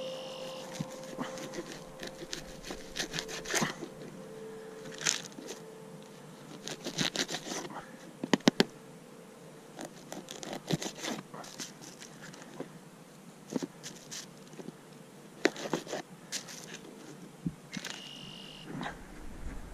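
A knife tapping and scraping against a plastic tray as fallfish is cut up for bait: a run of irregular sharp clicks and scrapes, with three sharp clicks in quick succession about eight seconds in. A plastic zip bag is handled near the end.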